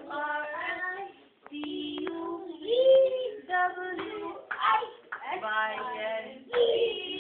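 A young child's high voice chanting a poem in a sing-song way, in short phrases, with a couple of sharp taps about two seconds in.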